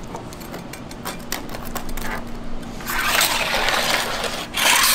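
Metal dough knives scraping across a steel candy table as hot hard candy is worked. A few light clicks and taps come first, then two long, loud scrapes in the second half.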